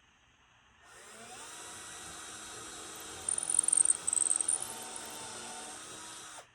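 Power drill spinning up about a second in and running steadily for about five seconds, with a louder high-pitched squeal in the middle, then stopping abruptly.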